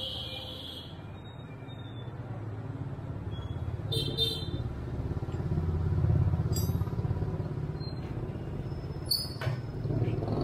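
A low rumble of passing road traffic, swelling about halfway through, with a few sharp metallic taps of a hammer on a punch against a steel block and angle-grinder gear part.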